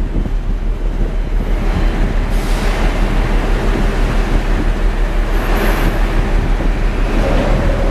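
Storm noise aboard or around a ship: a loud, steady low rumble under a rushing noise that swells twice, about two and a half and five and a half seconds in.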